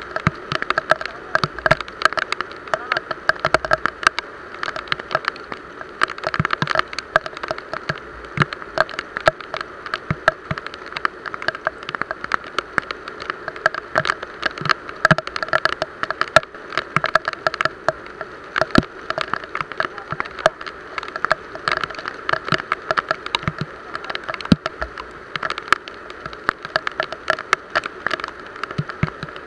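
Heavy rain falling on a small outrigger boat and the water around it: a dense, uneven stream of close drop impacts over a steady hiss.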